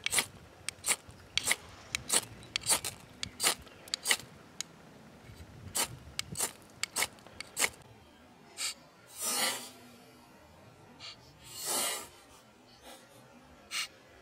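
Ferrocerium rod scraped with a steel striker to throw sparks onto chunks of charred wood. A quick run of short scrapes, one or two a second, goes on for about eight seconds, then a few slower, longer strokes follow.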